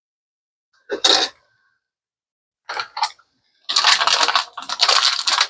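Small metal items clinking and rattling as they are handled: one clink about a second in, two more just before three seconds, then a busy run of rattling from about four seconds on.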